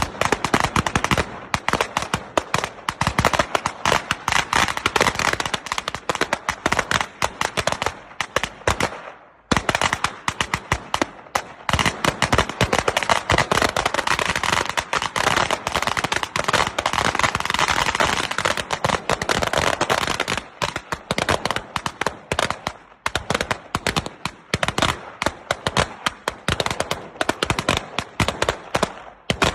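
Firecrackers going off in a rapid, dense stream of sharp cracks, with a brief lull about nine seconds in.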